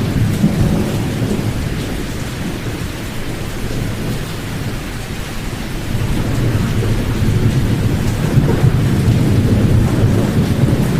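Pink noise with the high frequencies cut off, used for sleep. It is a steady, loud, low rumbling hiss that resembles distant thunder and rain, and it swells a little about halfway through.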